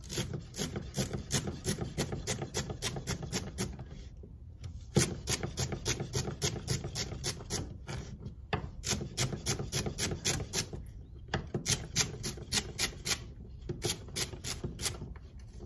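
Chef's knife chopping a bundle of celery stalks on a plastic cutting board: a quick, even run of crisp strikes, about three or four a second, broken by a few brief pauses.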